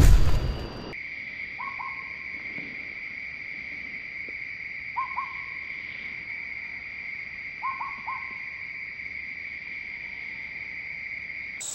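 A loud low rumble cuts off about a second in. It gives way to woodland ambience: a steady high insect drone with three pairs of short two-note animal calls a few seconds apart.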